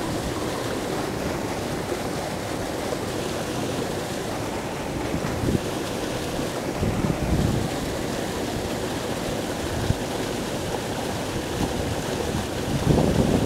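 Spillway water rushing and churning below a dam, a steady rush of whitewater, with a few brief low buffets of wind on the microphone.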